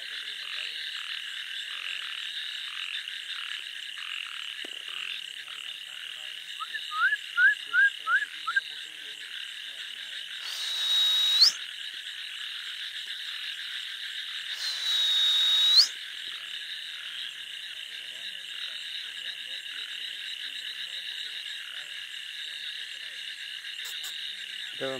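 Dense, steady chorus of frogs calling in a harvested paddy field at night. About seven seconds in comes a quick run of five rising chirps, and around eleven and fifteen seconds two loud hissing rushes, each about a second long, swell up and cut off sharply.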